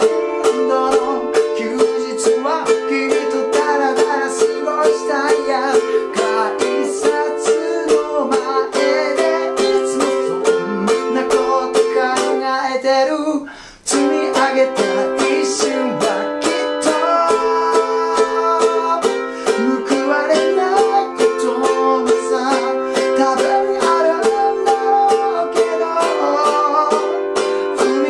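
A ukulele strummed in a steady rhythm through a chord progression, with a man singing along. The playing breaks off for a moment about halfway through, then resumes.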